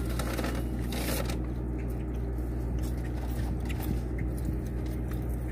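Close-up eating sounds: a bite into a burger with rustling and crackle in the first second or so, then chewing with small scattered clicks, over a steady low hum.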